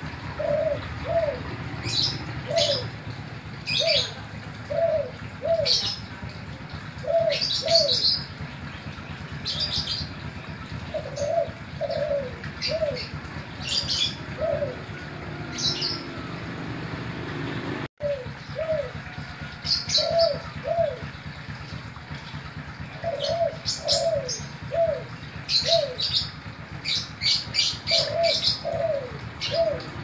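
Spotted dove cooing over and over: short falling coo notes in pairs and runs of three or four. Small birds chirp sharply higher above it, and the sound cuts out for a moment about halfway through.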